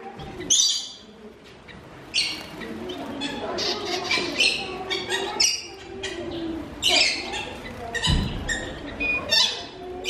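Aviary finches giving short, high chirping calls over and over, several overlapping. There is a low thud about eight seconds in.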